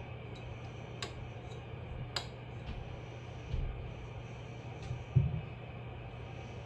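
Steady low hum with two light clicks about one and two seconds in, then two soft low thumps, the second louder.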